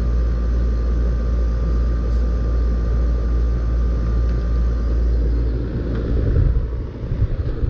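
R-410A air conditioner's outdoor condensing unit running steadily after being recharged, a deep compressor-and-fan hum with a faint steady whine that stops about five seconds in. Near the end the sound turns uneven, with a few bumps and swells.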